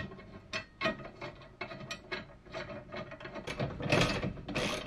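Metal parts clicking as a bolt is fitted through a lever's bearing pivot, then a socket ratchet wrench clicking rapidly while the pivot nut is tightened. The ratcheting grows faster and louder about three and a half seconds in.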